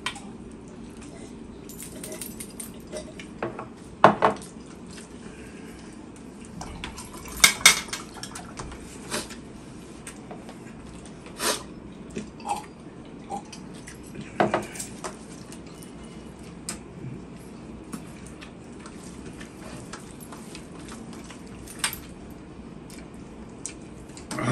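Hands eating rice from large stainless-steel platters: scattered clinks and scrapes against the metal, with a few louder knocks, the loudest about four and seven seconds in.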